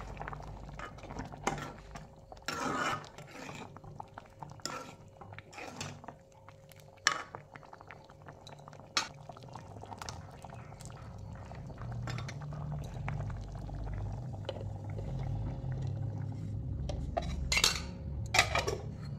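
Steel ladle scraping and clinking against an aluminium kadai as a simmering curry is stirred, with several louder clanks, over the low, steady bubbling of the boiling curry.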